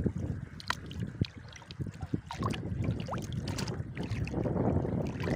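Shallow water splashing and sloshing around working hands, with a few sharp clicks of small kupang shells dropping into a plastic basket, over a low wind rumble on the microphone.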